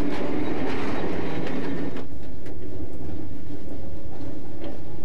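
Electric train running past, with a steady hum and clicks of the wheels over the rails. About two seconds in, the sound cuts abruptly to a quieter steady rumble with occasional clicks.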